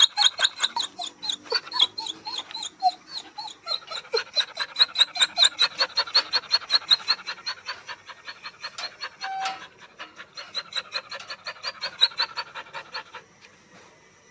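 Dog whining in a rapid run of short, high-pitched whimpers, about five or six a second, breaking off near the end.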